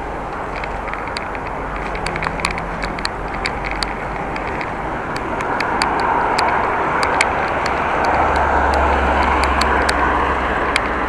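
Steady wind and rolling-tyre noise from riding a bicycle, with frequent small clicks and rattles. The rush swells louder from about halfway through.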